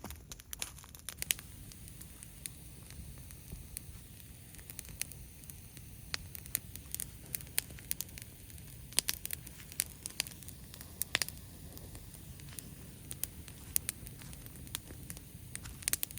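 Bonfire of dry fallen leaves and dead branches crackling, with irregular sharp pops over a steady low background noise.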